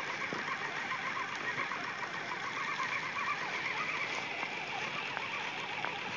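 Steady outdoor background noise: an even hiss with no distinct events standing out.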